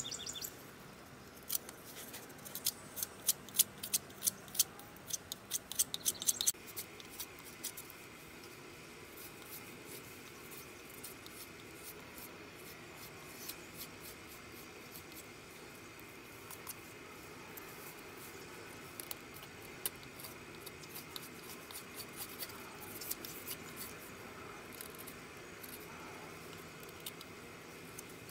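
Sharp carving knife shaving and scraping a wooden spatula blank: quick, crisp cuts in a dense run for the first six seconds or so, then sparser and softer cuts.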